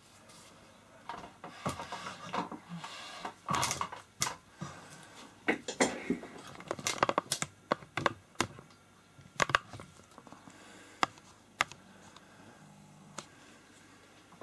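Handling noise: a scatter of sharp clicks, taps and rubbing as a gloved hand moves the silicone doll on its wooden board, busiest in the first ten seconds and sparser near the end.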